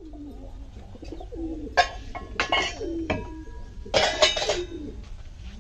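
Doves cooing over and over in low, falling calls, with a few sharp ringing clinks about two seconds in and again around four seconds.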